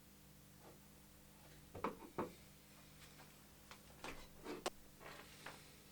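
Faint scattered clicks and light taps of small parts being handled during a repair of a radio-control transmitter, about seven in all. The strongest are a pair about two seconds in and a cluster a little past the middle.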